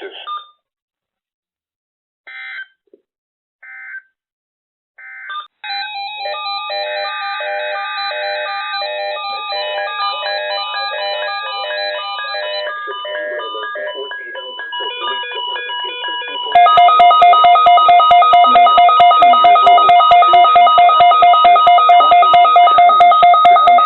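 Weather radio alert signalling: a few short bursts of digital data tones, then several seconds of overlapping stepped electronic alert tones, and from about two-thirds of the way in a loud, rapidly pulsing alarm beep made of two steady tones, which stops abruptly at the end. These are the tones announcing an Emergency Alert System Child Abduction Emergency on the weather radio receivers.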